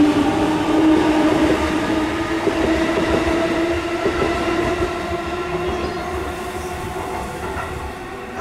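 Electric commuter train moving through the station, its traction motors giving a steady whine of several tones over the rumble of wheels on rail, gradually fading.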